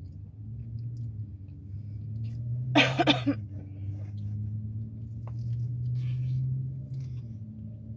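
Chewing and biting into a slice of pizza over a steady low hum in a car cabin. About three seconds in there is one short, loud throat sound.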